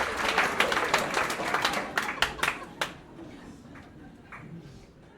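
Small club audience applauding, the clapping thinning out to a few last separate claps about three seconds in. A faint crowd murmur follows and fades away.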